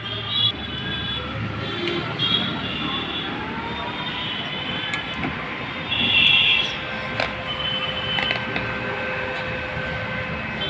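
Busy road traffic with car horns honking in short blasts, the loudest about six seconds in. About three seconds in, a steady tone rises in pitch and then holds level.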